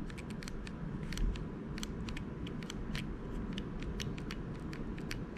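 Handling noise from a Glock 43 pistol: a scatter of small, irregular light clicks as the pistol is held and its trigger fingered.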